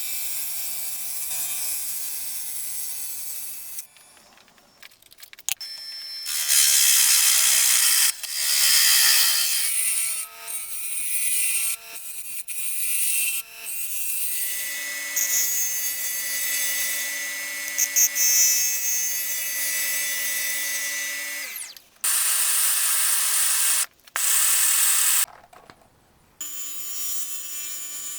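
Wood lathe motor running with a steady hum while a spalted sycamore bowl spins. Loud hissing, scraping bursts of tool or abrasive working the wood start and stop abruptly several times.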